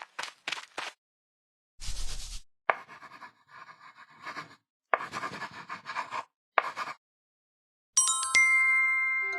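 Cartoon pencil-scribbling sound effects, short scratchy strokes and clicks of a letter being traced, ending in a bright chime about eight seconds in.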